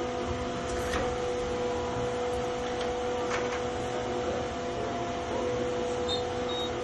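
Steady machine hum holding a constant mid-pitched tone, with a couple of faint clicks about one and three seconds in.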